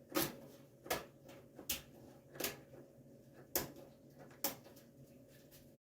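Scissors snipping off the excess window screen along the edge of a wooden screen door, about six short, sharp snips spaced under a second apart.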